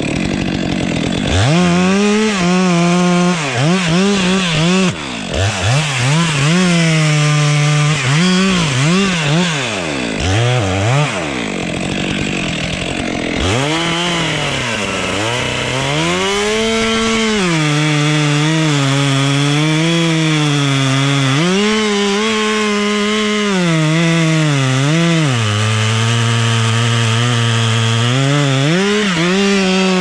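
Two-stroke chainsaw revving up and down in quick blips for about the first dozen seconds. It then runs at high throttle in long stretches, its pitch sagging and recovering as it cuts wood.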